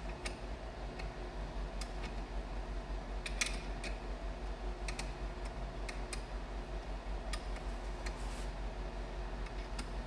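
Scattered light metallic clicks and ticks, irregularly spaced, of a wrench working the bolts on an A833 four-speed transmission's bearing retainer, run in snug but not yet torqued. A steady low hum sits underneath.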